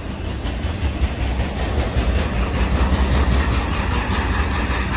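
Fast BNSF intermodal freight train passing close by: a steady low rumble from its flatcars loaded with highway trailers, with a regular clatter of wheels over the rails that grows a little louder about a second in.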